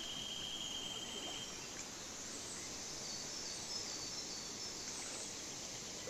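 Fast-flowing river rushing over rocks, a steady rush of water. A high, steady insect buzz sounds over it for about the first second and a half.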